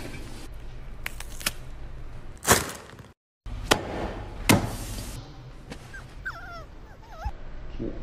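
A young puppy giving several small, high, wavering squeaks and whimpers in the second half. Earlier, a few sharp knocks and clicks are heard.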